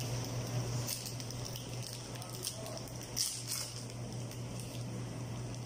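Steady low hum of commercial kitchen equipment, with a few brief rustles of a cheese wrapper being opened about a second in and again past the middle.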